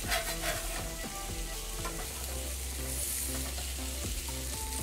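Plant-based Beyond Burger patties sizzling steadily in hot fat in a cast-iron grill pan, the patties releasing a lot of fat as they cook. A metal spatula scrapes and clicks against the pan in the first moment as a patty is slid up to be turned.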